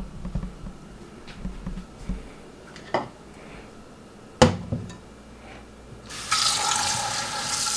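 A few knocks and handling bumps, the loudest about halfway through; then, about six seconds in, a kitchen sink tap is turned on and water runs steadily into the sink.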